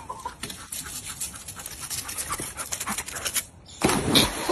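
Bull terrier panting in quick, rapid breaths as it trots along the pool edge, then a loud splash near the end as it leaps into the swimming pool.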